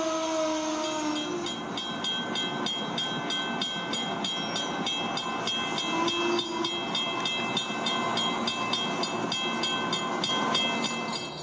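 LEGO cargo train rolling by on plastic track, its wheels clicking over the track joints in a steady rhythm of about three clicks a second. A held horn-like tone sounds for about the first second and again briefly around the middle.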